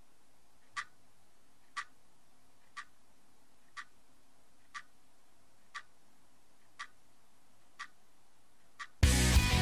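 Quartz alarm clock ticking once a second, nine sharp ticks, the first two a little louder. Near the end a loud rock song starts suddenly, with electric guitar and drums.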